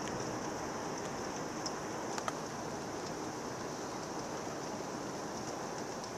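Heavy thunderstorm rain falling in a steady downpour, with a couple of sharp ticks about two seconds in.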